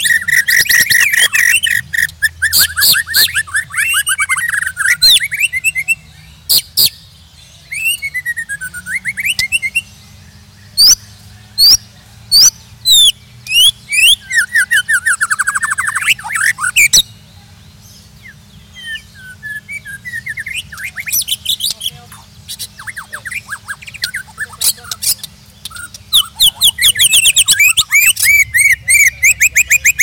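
White-rumped shama singing a varied song of whistled phrases, rapid trills and sharp clicking notes, ending in a fast run of repeated notes.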